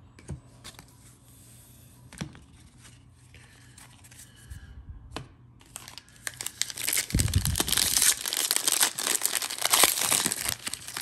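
A few light clicks and taps of cards being handled, then about six seconds in, the plastic wrapper of a 2021 Bowman jumbo card pack crinkling and being torn open, much louder.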